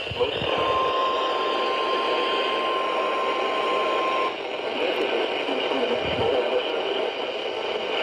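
NOAA Weather Radio warning alarm tone, a single steady 1050 Hz tone, coming through a Midland emergency weather radio's speaker over a constant hiss of radio static, and cutting off about four seconds in. The tone announces a warning broadcast.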